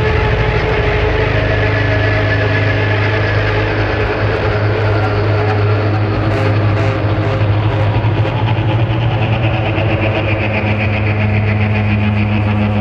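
Loud droning rock music: a held low bass note under a dense wash of sustained distorted tones. A fast pulsing texture comes in higher up in the last few seconds.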